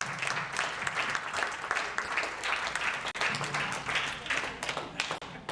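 Audience of guests applauding, many hands clapping at once.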